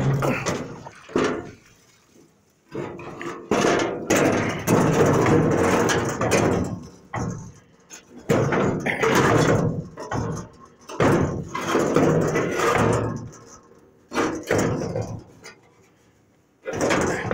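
Bursts of knocking and rubbing on rusty sheet metal as a hand handles a spare truck grille shell, several one to two seconds long with short pauses between them.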